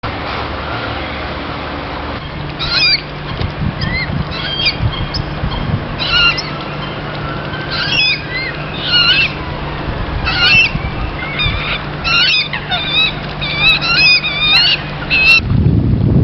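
Birds calling: many short, curving calls from about three seconds in, over a steady background hum, with a low rumble near the end.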